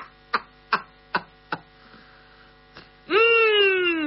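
A man's voice: a few short laughing syllables fading away, then near the end one long drawn-out 'hmm' that falls steadily in pitch. A steady electrical mains hum runs under it.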